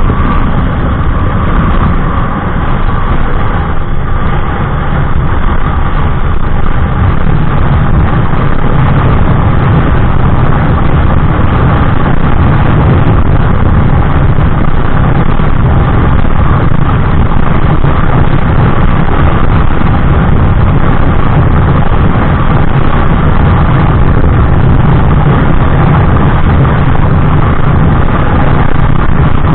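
Honda Click 125i scooter's single-cylinder engine running hard at high speed through an aftermarket EXOS X6 exhaust. The sound is a steady, loud drone heavy in the low end, rising a little over the first several seconds and then holding even.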